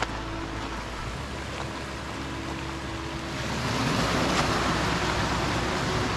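Creek water rushing, a steady noise that grows louder about three and a half seconds in.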